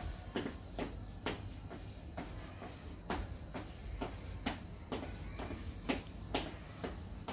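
Jump-rope skipping on a concrete floor: a sharp slap repeats in an even rhythm about twice a second. Under it, crickets keep up a steady high trill.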